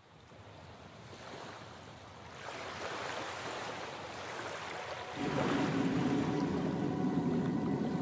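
Sea surf washing onto a sandy shore, fading in from quiet and growing louder. About five seconds in, a low sustained tone joins underneath.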